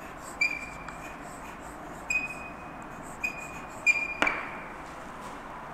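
Chalk writing on a blackboard, squeaking in four short high-pitched strokes, then one sharp tap of the chalk on the board a little past four seconds in.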